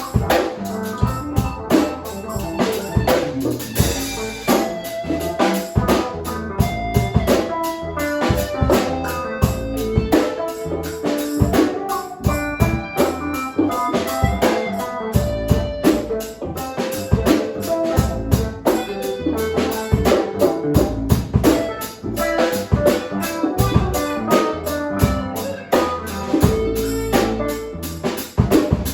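Background music with drums: a steady drum-kit beat under pitched instrument notes.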